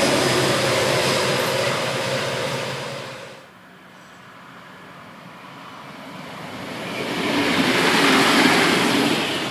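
A Pacific National TT-class diesel freight locomotive and its train running past, the sound fading over the first three seconds. It stops abruptly at a cut. Then a diesel passenger railcar approaches and passes, its sound building to its loudest about eight seconds in and starting to fall away at the end.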